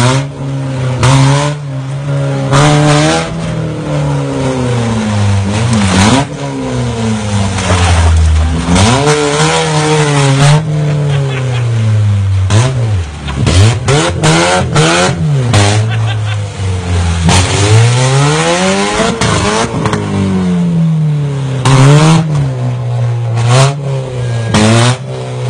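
Car engines revving hard and dropping back over and over as old hatchbacks ram one another in a demolition derby, with repeated sharp crashes of bodywork hitting bodywork.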